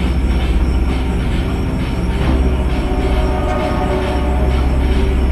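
Loud, steady mechanical rumble with a fast flutter, and faint squealing tones over it in the second half.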